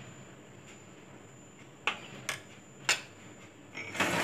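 Three faint, sharp clicks or light knocks about two to three seconds in, followed near the end by a louder brief rustling noise, over a faint steady room hiss.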